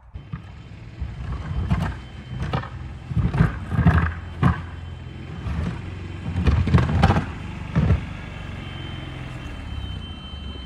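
Club Car golf cart running steadily while it pushes snow with a plywood plow board, with several louder rushing, scraping bursts.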